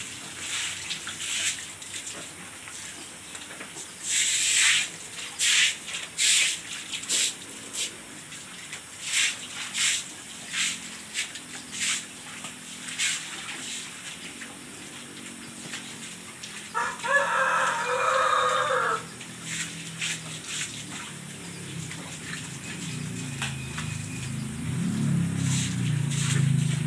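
A rooster crows once, a call of about two seconds a little past the middle. Before it come scattered sharp clicks and rustles, and near the end a low hum grows louder.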